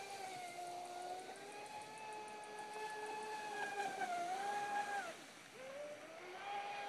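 Traxxas Spartan RC boat's brushless electric motor whining at a steady high pitch as it runs on the water. About five seconds in the pitch drops sharply as the throttle comes off, then climbs back up as the boat speeds up again.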